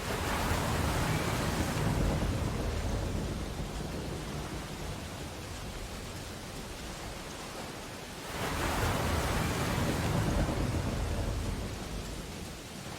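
Steady rain with two rolls of thunder: one breaks right at the start and rumbles for about three seconds, the second comes about eight seconds in and rumbles for about four seconds.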